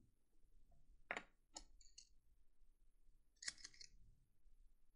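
Faint handling noises from small parts on a desk: a sharp click about a second in, a couple of lighter clicks just after, and a short louder rattle about three and a half seconds in, as the wire is let go and a plastic dispenser tube of solder wire is picked up.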